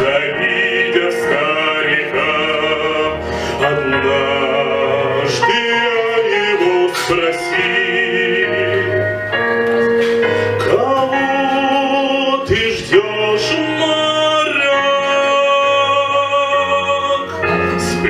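A man singing in a classical operatic style, with held notes and vibrato, over a continuous instrumental accompaniment.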